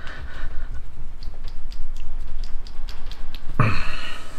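A small bottle of hobby paint being shaken by hand, giving light, irregular clicks about four a second.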